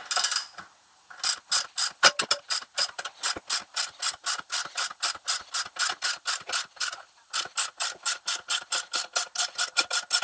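Socket ratchet wrench clicking steadily, about four or five clicks a second, as it backs out the screw of a bolt-on valve spring compressor on a cylinder head, slowly releasing the valve spring onto its keepers. The clicking stops briefly about seven seconds in, then picks up again a little faster.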